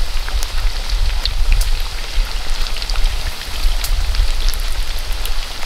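Chicken wings deep-frying in hot oil in a large wok: a dense, steady sizzle full of small crackling pops, over a low rumble.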